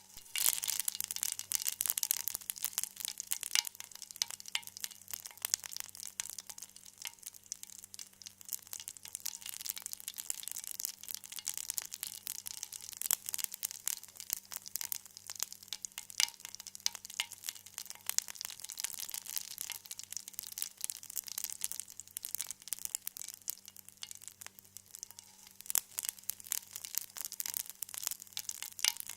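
Food frying gently in oil in a pan: a steady, dense crackle of fine high-pitched pops and sizzle, with a faint low hum underneath.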